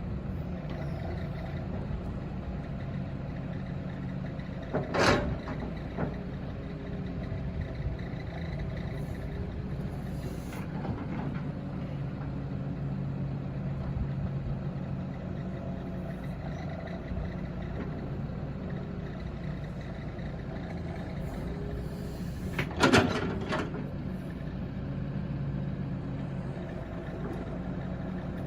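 CAT 313DCR hydraulic excavator's diesel engine running steadily, with two sharp knocks, one about five seconds in and another some eighteen seconds later.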